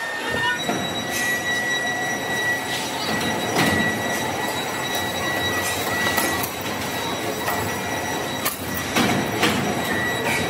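Heavy factory machinery running with a steady high whine and scattered impacts, several of them close together about three-quarters of the way through.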